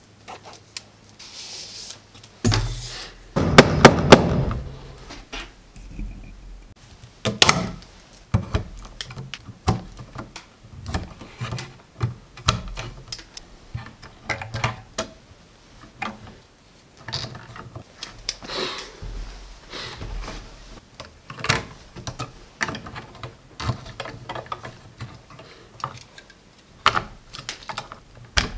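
Hands working electrical cable into a plastic electrical box: scattered clicks, knocks and rustles of cable, box and wire stripper. The loudest part is a cluster of knocks about three to four seconds in.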